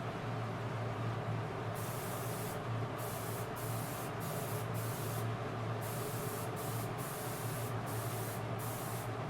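Paint spray gun hissing in about ten short bursts, each around half a second, as the colour-matched paint is sprayed onto the repaired alloy wheel, over a steady low hum.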